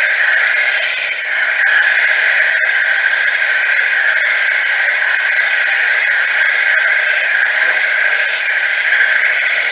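Grizzly mini mill running, its boring head cutting out the bore of a steel V-belt pulley: a steady, loud machining noise.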